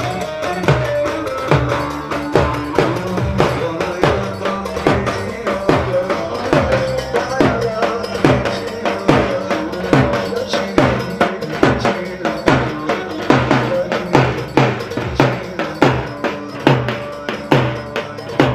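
Instrumental halay dance music: a steady, driving drum beat under a melody line.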